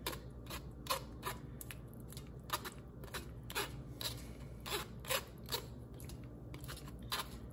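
Metal spoon scraping and tapping against a fine wire-mesh strainer as mashed yautía is pressed through it: short, irregular scrapes, about two a second.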